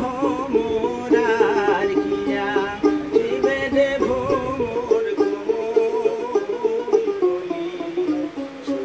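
A man singing a Baul folk song while plucking his own dotara, the long-necked four-stringed Bengali lute, in a quick repeating figure under a wavering vocal line.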